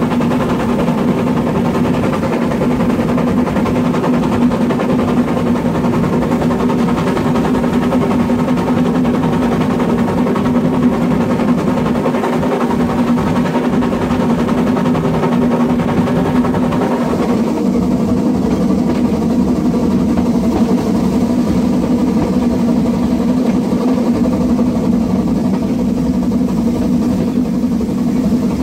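Metre-gauge 2-10-2 tank steam locomotive 99 7245-6 running at speed, heard from right on the engine: a loud, steady rushing of the moving locomotive and the air streaming past it. It turns duller about two-thirds of the way through.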